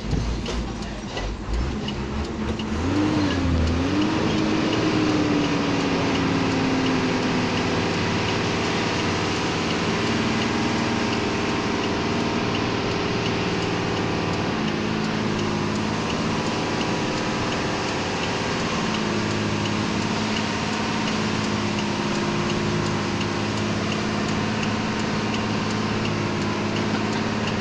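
Truck engine running under way, heard from inside the cab, with a steady drone and road noise. The engine note rises about three seconds in, then eases down and settles.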